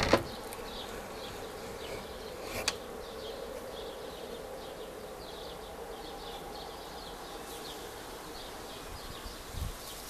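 Birds chirping in many short, high calls over a steady buzzing hum. There is a sharp click right at the start and another a little under three seconds in.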